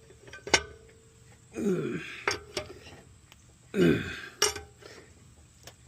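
Two short strained grunts, each dropping in pitch, each followed by sharp metallic clicks of a wrench on the wheel's lug nuts.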